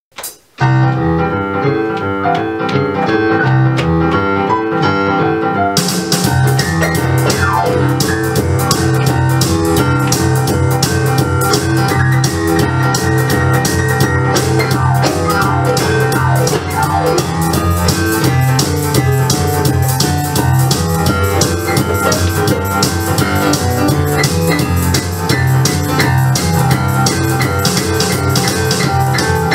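A song played on an electronic keyboard, with a drum beat joining about six seconds in.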